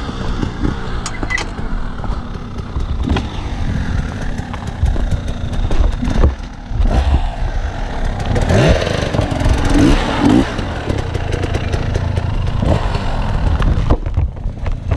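Gas Gas 300 enduro motorcycle engine heard from the rider's own bike, revving up and down unevenly as it picks its way over rocks, with knocks and clatter from the bike over the stones.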